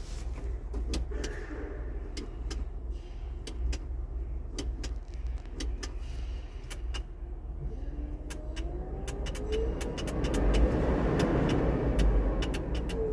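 Vehicle sound over a steady low rumble with scattered sharp clicks; in the last few seconds it swells, its pitch bending up and then down.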